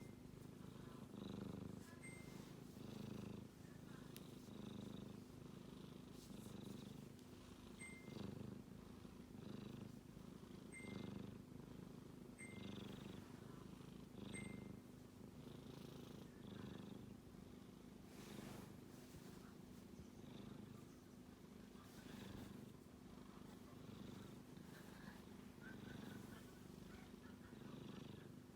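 Sleeping kitten snoring: a soft, low rumble that swells and fades with each breath, about every one and a half to two seconds.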